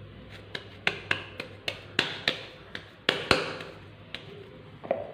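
Hands patting and rounding a ball of freshly kneaded bread dough in a plastic bowl: a quick, uneven run of sharp slapping taps over about three seconds, then two more taps near the end.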